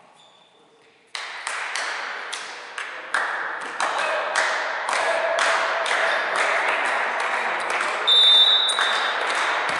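Spectators clapping or banging in a fast, steady rhythm, about three strikes a second, starting suddenly about a second in. Near the end a referee's whistle blows briefly.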